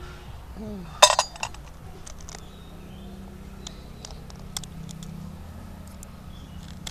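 A curved knife blade cracking off the back ends of small snail shells: sharp clicks and crunches, with shells clinking against one another. The loudest crack comes about a second in, and lighter clicks follow now and then over a faint steady low hum.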